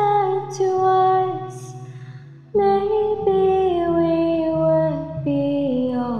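A woman singing two long held phrases over a karaoke backing track. The second phrase, starting about two and a half seconds in, slides slowly down in pitch toward the end.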